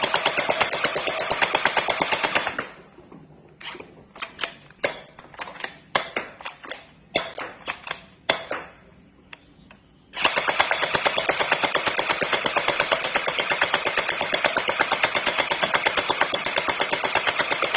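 Glock 18 gel blaster firing on full auto, its electric gearbox cycling in a rapid, steady rattle that stops about two and a half seconds in. Several seconds of separate clicks and knocks follow, then the blaster fires full auto again from about ten seconds in.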